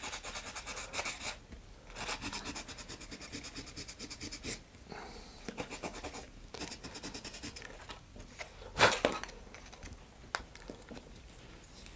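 Hand sanding: a small green plate rubbed back and forth on a sheet of sandpaper, a fast, even rasping in two long stretches, then softer rubbing. One sharp knock about nine seconds in.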